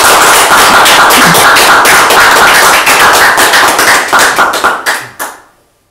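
Audience applauding, with distinct individual claps, dying away about five seconds in.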